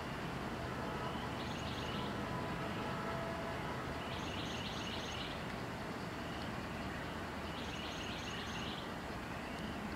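Low steady rumble of an approaching CSX intermodal freight train's diesel locomotives, heard from a distance. Over it, a bird sings short phrases of rapid high notes about every three seconds.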